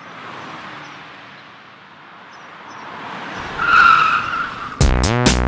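A rushing noise that swells and builds, ending in a brief high screech about four seconds in. Electronic music with a drum-machine beat starts abruptly near the end.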